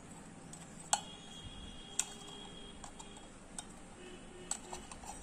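Sharp clicks and light metallic taps from small parts and tools being handled during an LED light repair. The two loudest come about a second apart, each leaving a brief high ring, followed by a scatter of smaller ticks.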